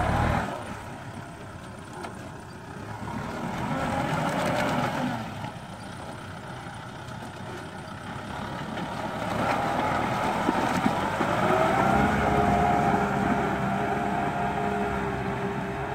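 Kubota M5040 tractor's diesel engine working under load as it drags a disc plough through wet paddy mud. The engine sound swells and fades, louder in the second half, where a steady whine comes in.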